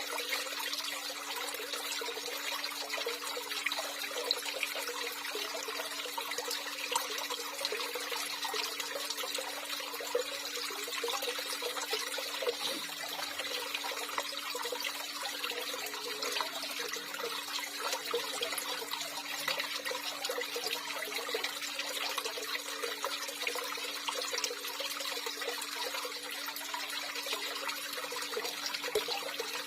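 Steady running, trickling water, continuous throughout, with a faint steady hum underneath.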